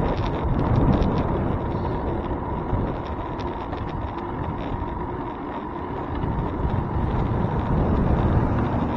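Wind buffeting the microphone of a handlebar-mounted bike camera, over the rumble of the bicycle rolling along the road, with small ticks and rattles. The noise eases a little in the middle and builds again toward the end.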